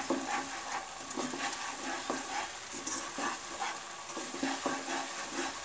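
Spatula stirring and scraping a sautéed onion, garlic and sauce mixture in a non-stick kadai, with a light sizzle from frying on a low gas flame. The scraping comes in repeated short strokes.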